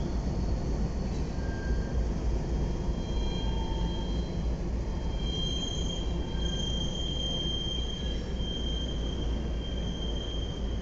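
Several Norfolk Southern diesel locomotives rolling past on a sharp curve, with a heavy low rumble. A few seconds in, a high, thin wheel squeal sets in and comes and goes: steel wheel flanges grinding against the rail on the curve.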